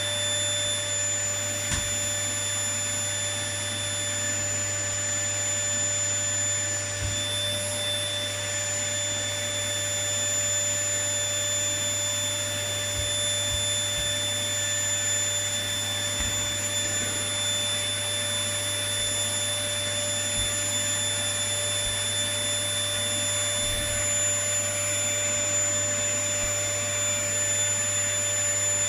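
Vacuum cleaner running steadily, its motor giving a constant, unchanging whine.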